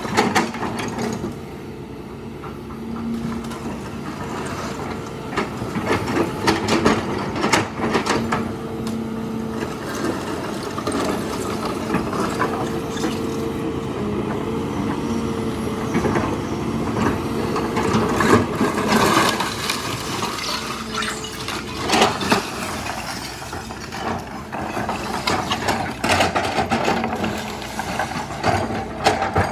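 Hitachi excavator's diesel engine running steadily, its pitch shifting a little with the load, amid irregular cracks and crashes of debris breaking as a house is torn down.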